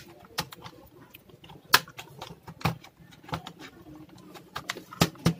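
A plastic pry pick working along the edge of an Acer Aspire 4710 laptop's plastic palmrest casing: irregular sharp clicks and snaps as the casing's clips are worked loose, the sharpest a little under two seconds in and two more close together near the end.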